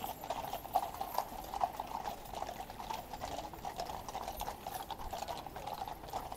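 Hooves of a mounted cavalry troop's horses clip-clopping on the road at a brisk pace, many hoofbeats overlapping in a continuous irregular clatter.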